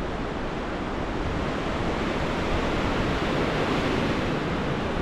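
Storm-force gale wind rushing through pine trees, a steady roar with a low rumble of wind buffeting the microphone, building slightly.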